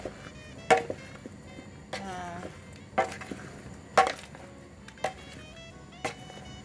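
Sliced plantain rounds being mixed by hand in a plastic bowl: sharp knocks about once a second as the pieces hit the bowl, each with a short ringing tail.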